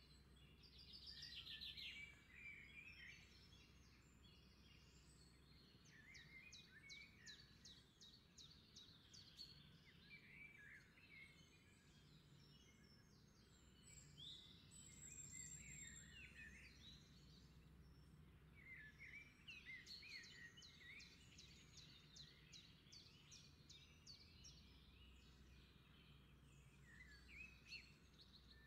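Faint birdsong: repeated chirps with quick pitch glides and several rapid trills, over a faint low steady hum.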